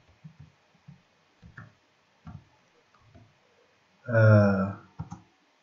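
A few soft, separate computer keyboard keystrokes, then about four seconds in a man's voice sounds briefly with a held syllable.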